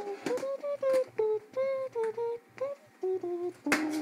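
A person humming a tune, about ten separate held notes stepping up and down in pitch.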